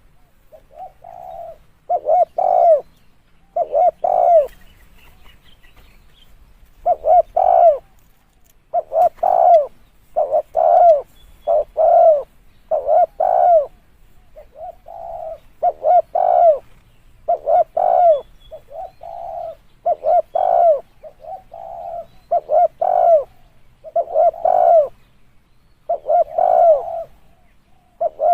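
Spotted dove cooing over and over in short phrases of several low coos, a phrase every one to two seconds, with a pause of about two seconds near the six-second mark.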